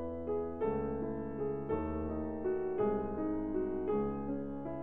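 Background music: slow piano playing sustained chords, a new chord about once a second.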